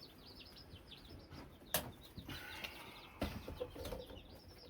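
Newly hatched chicks peeping, a continuous run of short high falling notes. A sharp click comes nearly two seconds in and a duller knock a little after three seconds.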